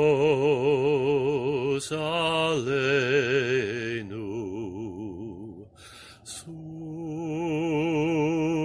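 A man singing a slow chant in long held notes with a marked vibrato, with a short break for breath a little past halfway.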